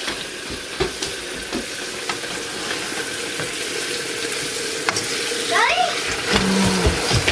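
Chicken and shiitake mushroom pieces sizzling in olive oil in a stainless steel frying pan. A spatula scrapes along the pan and knocks against it several times as the pieces are stirred.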